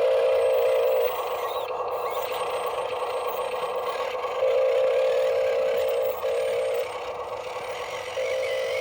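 Radio-controlled construction models working, with a steady high-pitched motor whine that switches on and off several times over a constant hiss.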